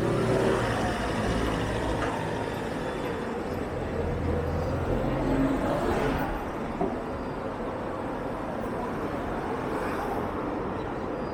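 Urban road traffic: motor vehicles driving past with engine rumble and tyre noise. The low engine rumble is louder in the first half, then it settles into a steadier traffic hum.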